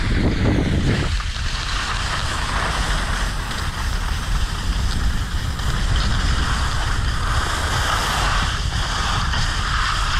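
Wind buffeting the microphone, with heavy low rumble under a steady rushing hiss, as from moving fast downhill on skis.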